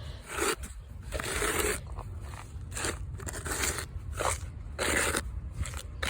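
Dry, rocky dirt being scraped and scooped by hand: a run of separate crunching scrapes, roughly one every half second to second.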